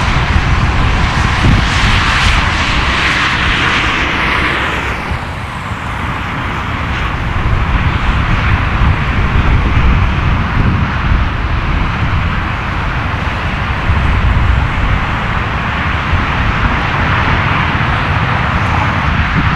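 Jet airliner's engines passing overhead: a loud hissing jet noise over a deep rumble, swelling early and dropping in pitch about five seconds in as the plane goes by, then a steady rumble as it moves off.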